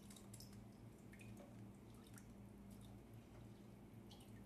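Near silence over a low steady hum, with faint scattered light clicks as a metal spoon scoops rice from a steel bowl.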